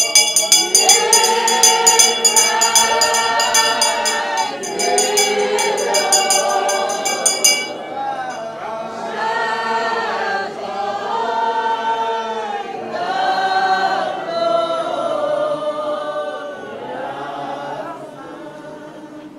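A congregation singing together, with a brass handbell shaken in rapid, even strokes over the first seven or so seconds before it stops.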